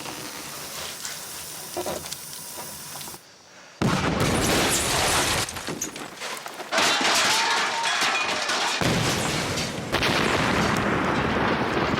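Gas explosion of a house: after a fairly quiet stretch, a sudden loud blast about four seconds in, followed by a continuing loud roar of blast noise and debris with several abrupt shifts in level.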